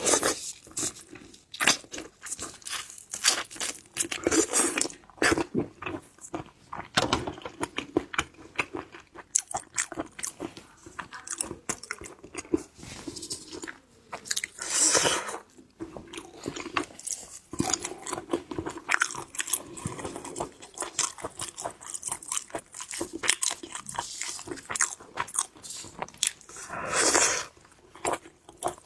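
Close-miked eating of shellfish: a run of crunching bites and wet chewing, with two longer, louder stretches, one about halfway through and one near the end.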